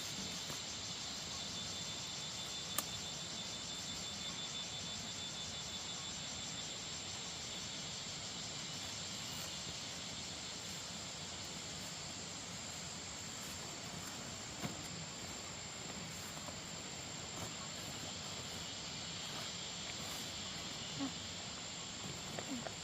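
Insects trilling steadily with a high whine, and an evenly pulsing chirp under it for the first several seconds. A single sharp click about three seconds in, and a few faint knocks later.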